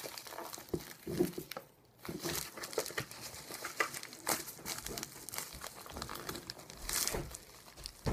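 Crinkling and rustling of a plastic mailing package being pulled and torn at by hand, with a brief pause about two seconds in.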